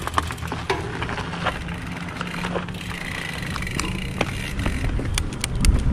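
Road bicycle setting off, heard from a handlebar-mounted camera: scattered clicks and rattles from the bike over a low road and wind rumble. The rumble grows louder near the end as the bike picks up speed.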